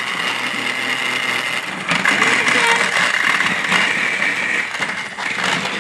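Battery-powered Thomas & Friends Trackmaster toy train running on its plastic track: a steady motor whir that grows louder about two seconds in.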